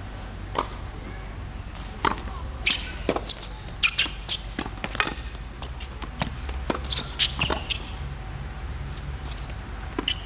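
Tennis ball struck by rackets and bouncing on a hard court during a rally: a string of sharp knocks at irregular gaps, often less than a second apart, over a low steady rumble.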